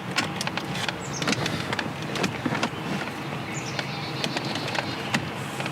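Irregular light clicks, taps and scrapes of hand tools working on plastic car interior trim around the shifter, with a couple of brief squeaks, over a steady low hum.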